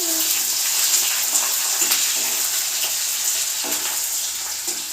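Onions frying in hot oil in a kadhai: a steady, even sizzle.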